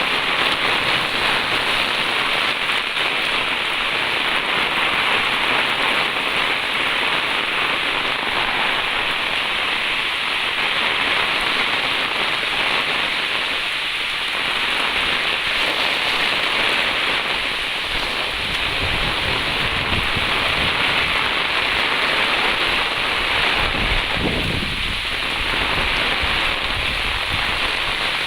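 Steady heavy rain falling, an even hiss of drops, with a low rumble joining in during the second half.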